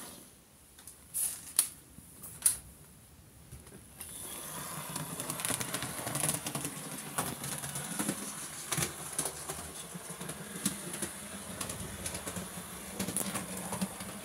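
Hornby OO gauge Peckett W4 model locomotive running around the layout: a small electric motor hum with a rapid, irregular clicking of the wheels over rail joints and points. A few sharp separate clicks come first, and the steady running noise starts about four seconds in.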